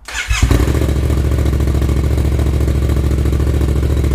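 Yamaha FZ-07's 689 cc parallel-twin, fitted with a Black Widow full exhaust system, is cranked by its starter and fires within about half a second. It then idles steadily with an even, loud pulse.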